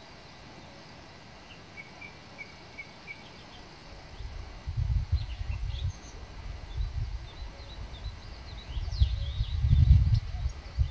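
Small birds chirping and calling in short scattered notes over a faint steady outdoor hiss. From about four seconds in, irregular low rumbling buffets on the microphone come and go and are the loudest sound.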